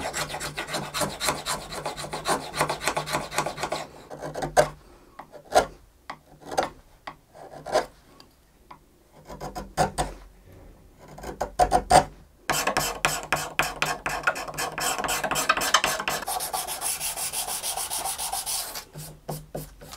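Small hand tools shaving and scraping the underside of an ebony violin fingerboard, a fast run of strokes at first, then scattered single strokes, then a steady run of fast strokes again from about halfway through until shortly before the end.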